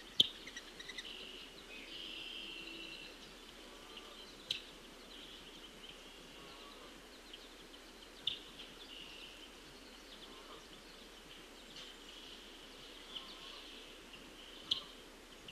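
Outdoor ambience with birds calling: a faint steady chatter high in pitch and a few sharp, short call notes spaced several seconds apart.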